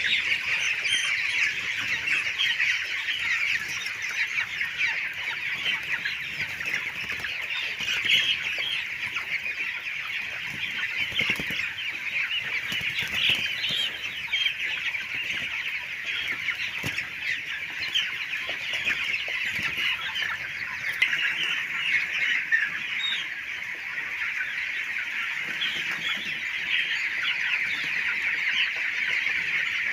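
A large flock of chickens in a poultry shed, giving a continuous dense chorus of overlapping clucks and cheeps.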